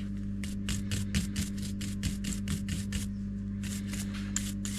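A small stiff-bristled detailing brush scrubbing carbon deposits out of the ports of a MAP sensor, in quick strokes about six a second, with a short pause about three seconds in. A steady low hum runs underneath.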